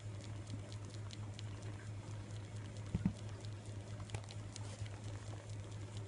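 Kitten mouthing and chewing a fuzzy toy, making many small faint clicks, over a steady low hum. There is a soft bump about three seconds in.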